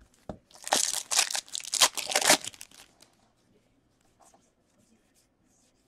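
Foil wrapper of a Topps baseball card pack being torn open and crinkled: a crackling run of tearing lasting about two and a half seconds. A few faint ticks of cards being handled follow.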